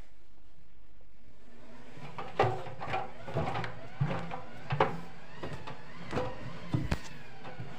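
Drum of a Schaub Lorenz front-loading washing machine being turned by hand with the door open: from about two seconds in, a run of irregular clunks and knocks as the drum and laundry move, some with a short squeak.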